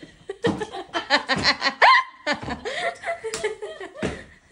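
Laughter, with a toddler's steps in oversized adult shoes knocking on a wooden floor.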